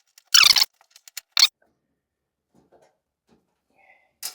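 Brief handling noises from work on a dryer's heating element housing: a short scrape about half a second in, another about a second and a half in, then a click near the end.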